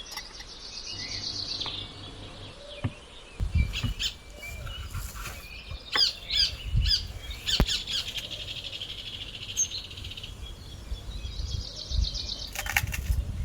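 Small birds chirping and trilling, with a few quick falling chirps near the middle, over occasional low thuds.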